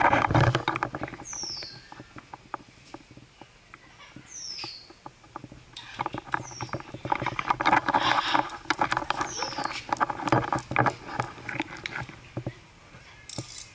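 Blue-and-yellow macaw's claws clicking and tapping on a ceramic tile floor as it walks, the taps thickening into a quick patter in the second half. A short, high, falling chirp repeats about four times.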